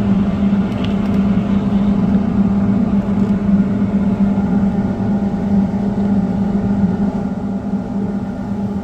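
Hydroelectric turbine and generator running with a loud, steady hum, a strong low tone and a rushing undertone that holds unchanged throughout.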